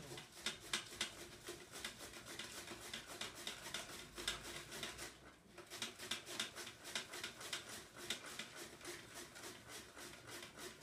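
A head of white cabbage shredded by hand on a shredder board over a plastic bowl: quick, rhythmic scraping strokes, several a second, with a brief pause about five seconds in.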